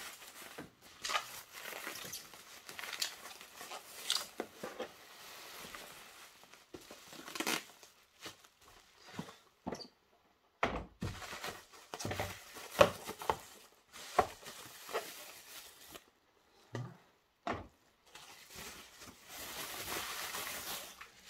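Bubble wrap crinkling and rustling as it is pulled off and unwrapped by hand, in irregular bursts that grow into a denser rustle near the end. A few sharper knocks come in the middle from the clear plastic cases being handled.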